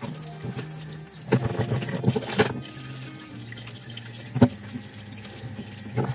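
Tap water running into a stainless steel sink while dishes are scrubbed and rinsed, with a few sharp knocks of a pan against the sink.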